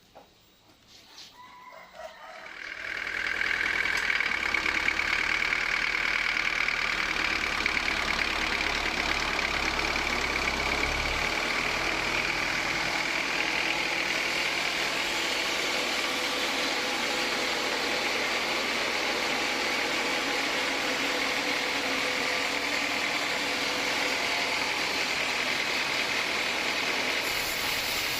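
Homemade band sawmill machinery starts up about three seconds in and runs steadily, an even loud whirr with a high whine over it.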